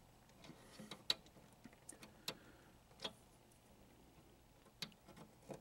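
Faint, irregular small clicks and ticks, about half a dozen: a wiring-harness connector being worked onto a pinball circuit board's header pins.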